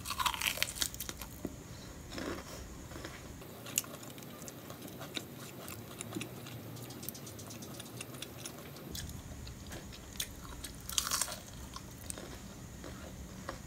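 Biting into and chewing crispy breadcrumb-coated fried shrimp tempura: a loud crunch of a bite at the start, then a run of small crackling crunches as it is chewed, and another loud crunching bite about eleven seconds in.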